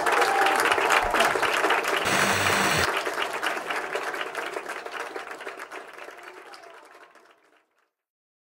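Audience applauding, a dense patter of clapping that fades away to silence over the last few seconds.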